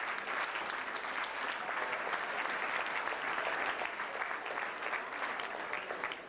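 Audience applauding in a large hall: many hands clapping in a dense, steady patter that eases slightly near the end.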